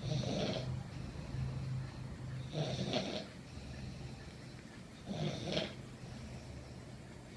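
A sleeping person snoring, three snores about two and a half seconds apart.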